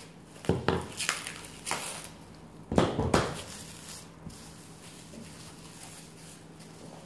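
Plastic cling film crinkling and rustling as it is wrapped around a block of puff pastry dough, with a few sharp crackles and knocks in the first three seconds, the loudest about three seconds in. After that only faint rustling as the wrapped block is pressed and lifted.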